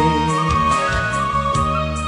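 Instrumental accompaniment to a slow pop ballad playing between sung lines, with a steady bass and a held melody note.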